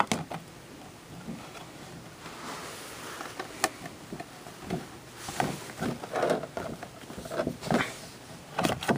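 Cardboard slipcover being worked over a DVD box set: scattered rustling, scraping and light knocks of packaging being handled, with a sharp click a few seconds in and busier handling in the second half.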